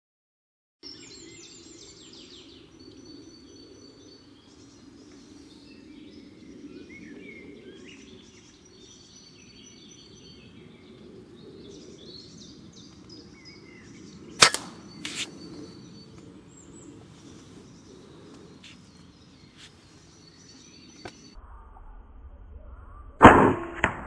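Birds chirping over a steady outdoor hum, with two sharp knocks about halfway through. Near the end comes the loudest sound: the crack of a sub-12 ft-lb Air Arms S410 pre-charged air rifle firing, with the smack of the pellet hitting a squirrel at the feeder.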